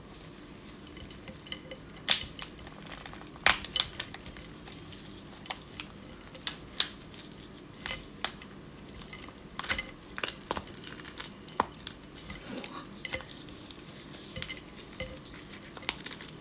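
Shell of a raw spiny lobster being pried and pulled apart by hand: irregular sharp clicks and cracks, a few of them much louder than the rest.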